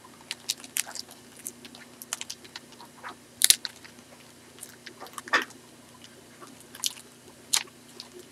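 Foil wrapper of a Panini Absolute Football card pack crinkling and tearing as it is peeled open by hand, in scattered sharp crackles. The loudest crackle comes about three and a half seconds in.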